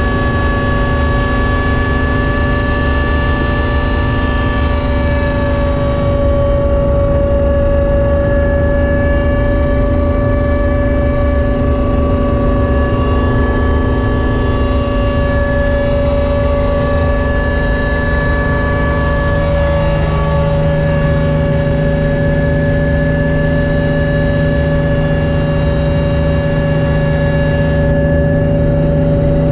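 Helicopter in cruising flight heard from inside the cabin: a steady low rotor rumble under several constant engine and transmission whines. About twenty seconds in, the tone shifts slightly and a lower hum joins.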